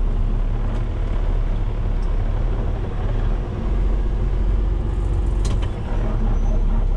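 Heavy tow truck's diesel engine running at low speed, heard from inside the cab as a steady low rumble. A short sharp click comes about five and a half seconds in.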